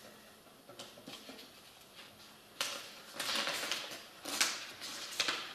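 Sheets of paper rustling as they are lifted and turned over, in several short bursts starting about halfway through; before that, only faint room sound with a small click.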